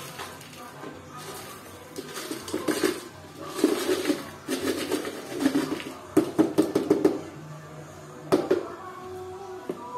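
Caustic soda shaken and poured from a plastic jar into a plastic bucket of water, rattling in several spells, with a few sharp clicks and a knock near the end.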